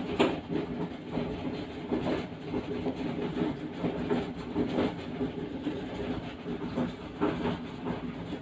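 Raw fish being handled and wiped dry with kitchen paper: irregular rustling and scraping, with one sharper scrape near the start, over a steady low hum.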